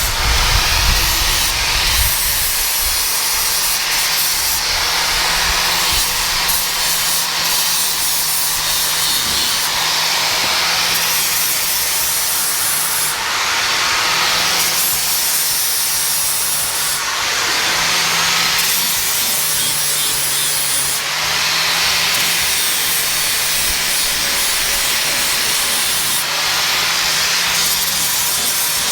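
Angle grinder running steadily and blending down a weld on stainless steel, the abrasive disc rubbing across the metal in repeated passes.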